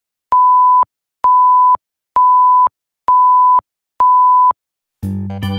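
Film-leader countdown beeps: five identical steady high beeps, each about half a second long, evenly spaced just under a second apart. Music starts near the end.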